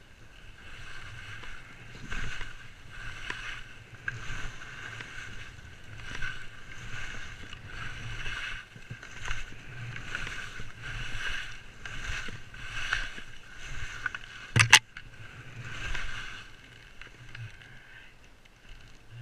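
Skis scraping and swishing through thick, heavy snow in a steady run of turns, about one a second. One sharp clack stands out about three quarters of the way through.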